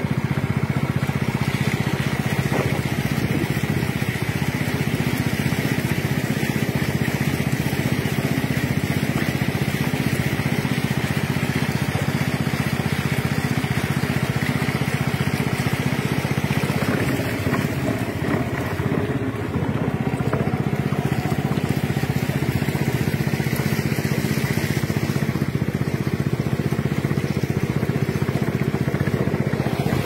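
Small boat's motor running steadily, easing off briefly a little past the halfway point.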